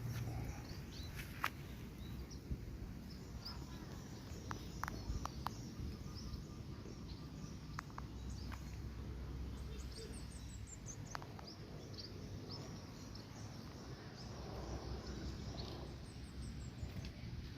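Outdoor background noise with small birds chirping now and then, including a quick run of high chirps near the middle and another near the end, and a few sharp clicks.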